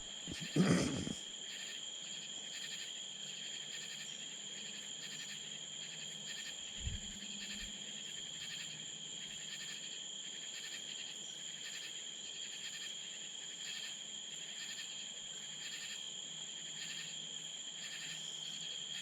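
Night chorus of crickets and other insects: a steady high trill, pulsing evenly. There is a brief louder noise within the first second, and a faint low thump about seven seconds in.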